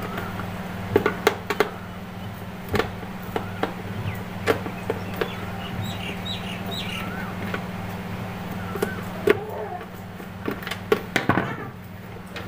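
Scattered sharp clicks and knocks of hands and tools handling the plastic housing of a Bajaj mixer grinder as it is opened up for repair, over a steady low hum. Birds chirp in the background around the middle.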